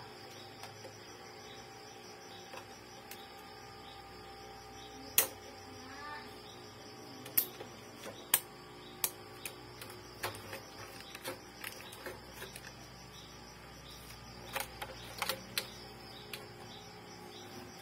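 Irregular sharp clicks and taps of the plastic ink-tube clips and frame of an opened Epson L3110 inkjet printer as hands handle the tubes and wipe them with a cloth, about a dozen in all, the loudest about five seconds in, over a faint steady hum.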